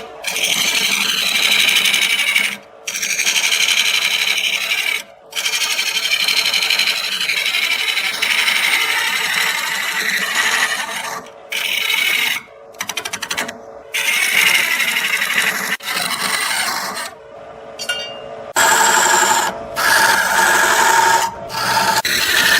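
Wood spinning on a lathe against a turning tool, making a steady scraping hiss. The hiss cuts out abruptly several times for a moment.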